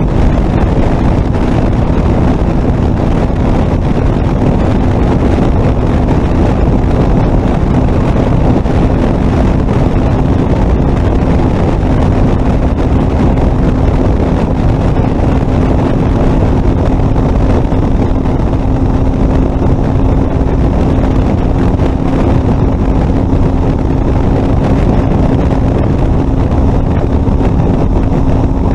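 Ural sidecar motorcycle's flat-twin engine running under steady load at highway speed, its note creeping slowly higher as the outfit accelerates, under heavy wind noise on the microphone.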